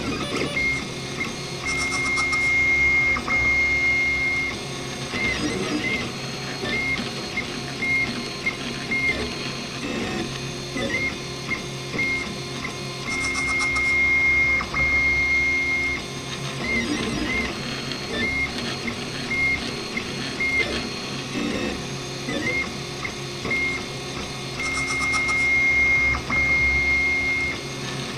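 RepRap Prusa Mendel 3D printer's stepper motors whining as the print head and bed move. Long, steady high tones come during longer straight moves, about every eleven seconds, with quick short chirps from rapid back-and-forth moves in between.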